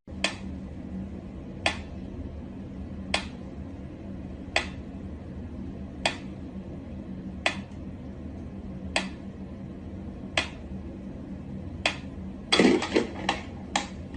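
Sharp clicks repeating evenly about every second and a half over a faint steady hum, then a quick flurry of clattering clicks near the end.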